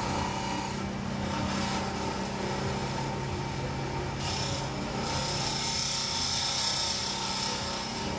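Wood lathe motor humming steadily while a small hand-held blade cuts through the spinning stub at the finial end of a wooden pen to part it off. The high hiss of the cut grows stronger about halfway through.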